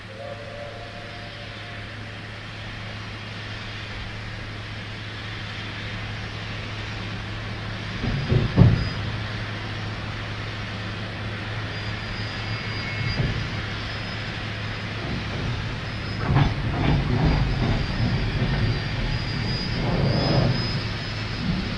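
Steam train drawing nearer, its rumble growing steadily louder, with a few heavier bursts of noise and a faint high squeal in the second half.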